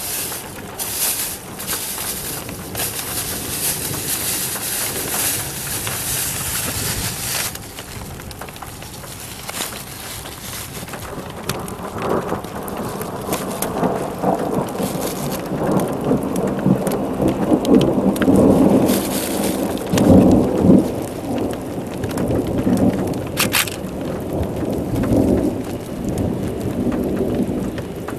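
Thunderstorm: heavy rain hissing, then a long rolling rumble of thunder that builds from about halfway and is loudest in the last third, with single drops ticking throughout.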